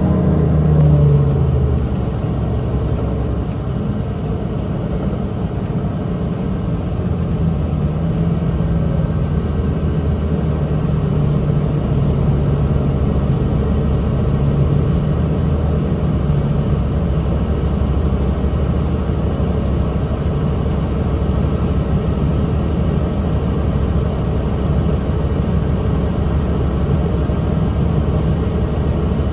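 Cummins ISL straight-six diesel of a Nabi 40LFW hybrid transit bus running with a steady low rumble, its engine note drifting a little, slightly louder about a second in.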